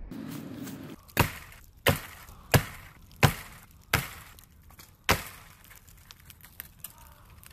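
A blade chopping into a thin tree trunk: six hard strikes about two-thirds of a second apart, the last after a slightly longer pause.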